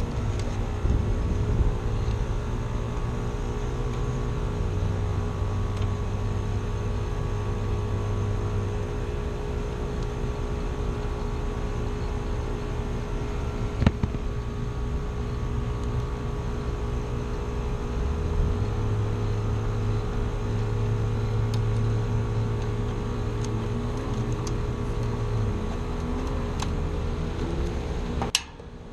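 Heat pump condensing unit running in cooling mode after its reversing valve has switched over: a steady compressor and fan hum with constant tones, one sharp click about halfway through, cutting off abruptly near the end.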